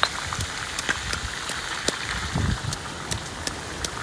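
Stone pestle pounding chillies in a stone mortar: repeated dull thuds with scattered sharp ticks.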